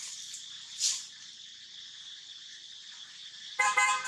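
Steady high buzz of insects in the forest. A brief swish comes about a second in, and near the end a vehicle horn toots twice in quick succession.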